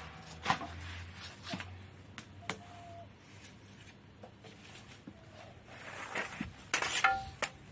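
Thin flatbread being turned and lifted on a hot domed griddle with a wooden stick: scattered light taps and dry rustles of the dough and stick, with a sharper, louder burst about seven seconds in.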